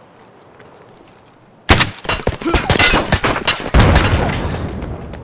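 A sudden loud crash about a second and a half in, followed by clattering and a second heavy thud, as objects fall and knock together.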